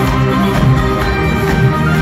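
Live heavy metal band playing loud with electric guitars and drums, recorded on a phone whose built-in microphone is overwhelmed by the volume.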